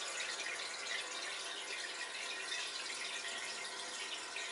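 Steady trickle of water circulating in a home aquarium, an even hiss with no breaks.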